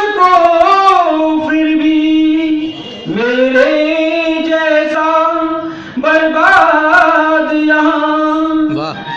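A man singing Hindi-Urdu verse in a slow, melodic chant, holding long drawn-out notes, in three phrases with short breaks about three and six seconds in.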